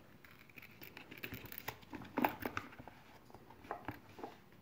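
Faint handling noise as a leather strap is worked around a purpleheart wooden box: light rubbing, rustling and small taps, with one slightly louder tap about two seconds in.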